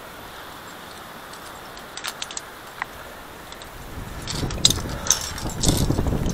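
Metal clinks and jangles of via ferrata climbing gear, carabiners on the steel cable, a few sharp clicks at first and more near the end. From about four seconds in, a rising low buffeting and rustle of wind on the camera microphone joins them.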